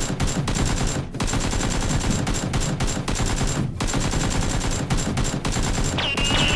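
Rapid automatic machine-gun fire, dubbed as a sound effect over a toy blaster being fired, in long bursts broken briefly about a second in and again near four seconds. Near the end, ringing tones slide downward in pitch.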